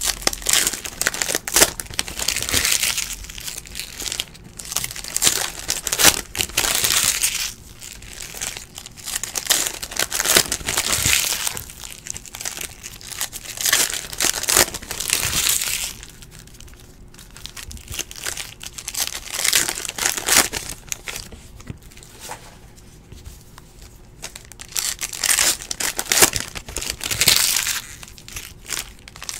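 Foil trading-card pack wrappers crinkling and tearing as they are handled and ripped open, in irregular bursts with quieter stretches a little past the middle.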